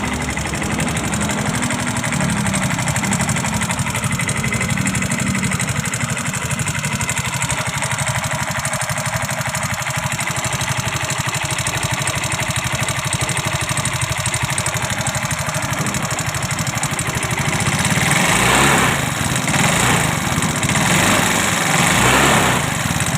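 Yamaha Fino scooter's single-cylinder engine idling with a rough, coarse mechanical noise, a sign of an internal engine fault. The throttle is blipped three times near the end.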